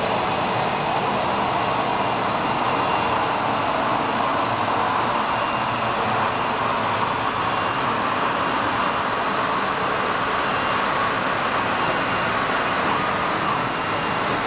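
WEEKE CNC woodworking machining center running: a steady, loud whirring rush with a faint high whine that comes and goes.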